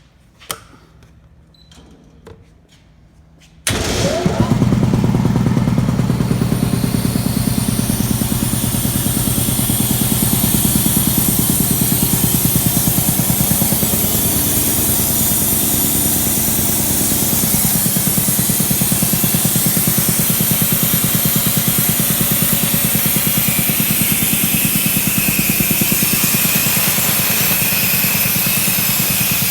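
Ingersoll Rand BAP-10-TV3 electric high-pressure breathing air compressor starting abruptly a few seconds in, then running steadily with a fast pulsing beat under a hiss. The seller says the unit builds a little pressure but nowhere near 3,000 psi.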